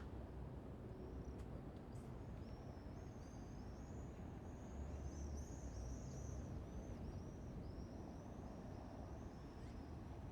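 Early-morning town-square ambience: a steady low rumble of distant traffic, with a small bird chirping a quick series of short, high notes through most of it.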